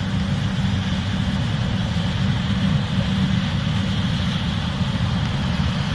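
Case IH 8250 Axial-Flow combine running steadily while harvesting corn, a constant low engine drone with a hiss of machinery over it.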